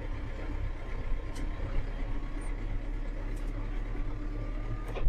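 Claas Arion 430 tractor's four-cylinder diesel running steadily under way in B4, heard from inside the quiet cab: a low hum with a faint whine that rises slightly in pitch in the second half, and a few light clicks.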